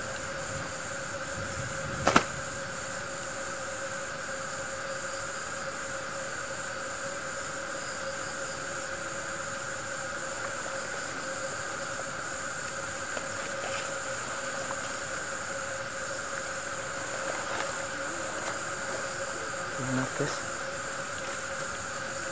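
Steady chorus of insects droning at several fixed pitches without a break. A single sharp click about two seconds in, and a couple of soft knocks near the end.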